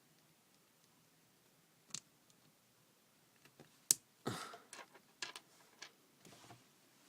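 Small plastic pieces handled and knocked together, giving a few scattered clicks and light clatter. The sharpest click comes just before four seconds in, followed by a short run of clicks.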